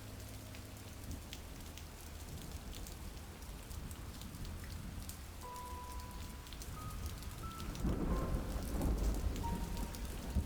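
Steady rain falling, with a low rumble of thunder swelling up about eight seconds in.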